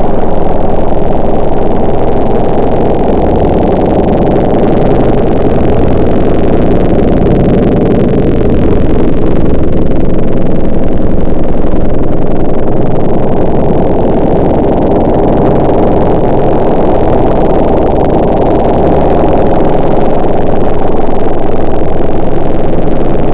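A motor running steadily and loudly, with slow rises and falls in level.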